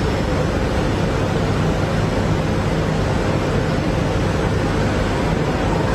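Steady industrial noise of a robotic spray-painting booth: an even hiss with a low, steady hum underneath.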